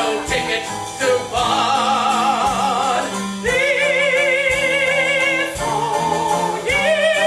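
A man singing high, held operatic notes with a wide vibrato, the closing phrases of a stage-musical song, over instrumental accompaniment.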